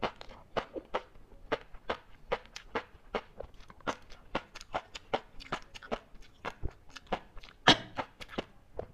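Chewing large-grain flying fish roe, the eggs popping between the teeth in crisp separate clicks, about two to three a second, with one louder pop near the end.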